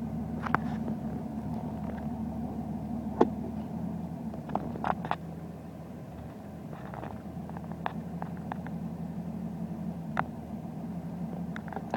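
2005 Dodge Ram's Cummins turbo-diesel idling with an uneven, rough idle, a fault that shows only at idle. A few sharp clicks come through over the steady engine note.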